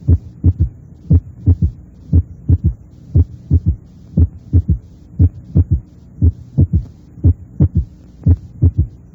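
Recorded heart sounds with a third heart sound: a triple rhythm of first sound, second sound, then a third sound close behind the second, repeating about once a second, over a steady low hum.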